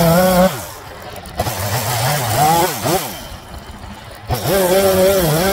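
Echo CS-3510 two-stroke chainsaw at full throttle, dropping to idle about half a second in and blipped up and down a few times, then opened back up to full throttle about four seconds in.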